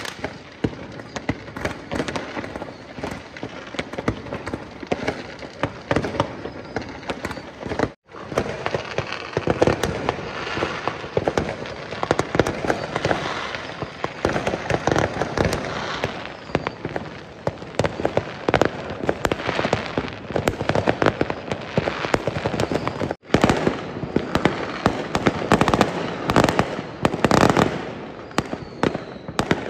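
Many fireworks going off at once from all around, rockets and aerial shells bursting: a dense, unbroken stream of bangs, pops and crackling. It breaks off for an instant twice.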